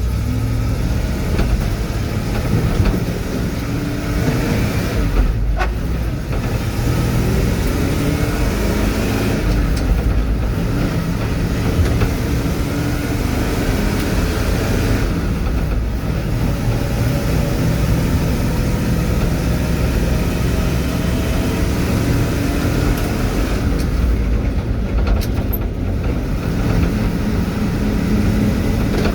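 Truck carrying a load, driving along the road: the engine runs with a low drone whose pitch shifts up and down, under steady road and tyre noise.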